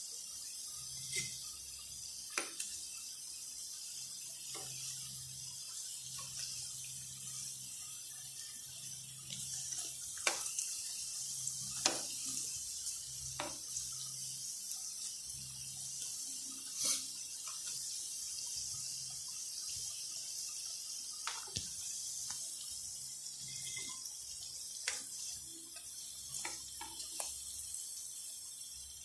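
Corn fries deep-frying in hot oil: a steady high sizzle with scattered pops and crackles.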